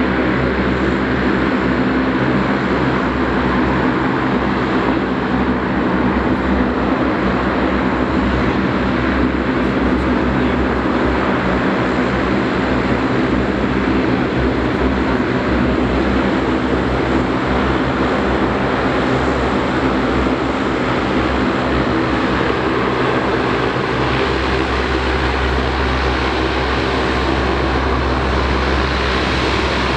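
Lockheed C-130H Hercules taxiing, its four Allison T56 turboprop engines running at low taxi power: a steady, loud drone with a hum of several low, even propeller tones.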